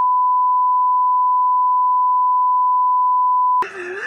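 Censor bleep: a single steady 1 kHz tone covering a man's words, held for about three and a half seconds. It cuts off sharply near the end, and voices and laughter come in.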